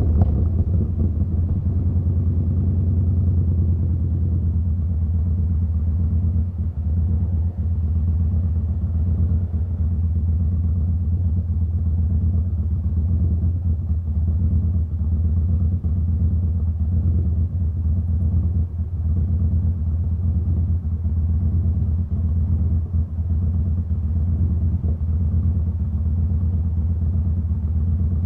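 Yamaha Bolt's V-twin running steadily through a Vance & Hines slip-on exhaust, a deep even rumble; a little fuller in the first few seconds, then steady.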